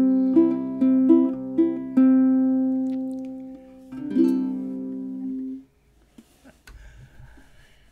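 Kala guitelele (a six-string, nylon-strung small guitar) playing picked single notes over ringing bass strings, closing on a final chord about four seconds in that rings and is damped off about a second and a half later. A few faint clicks follow in the quiet.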